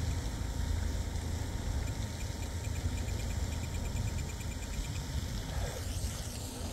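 Wind buffeting the microphone, a steady low rumble. In the middle it is joined by a faint rapid run of ticks from the radio transmitter's scroll wheel as a setting is dialled in.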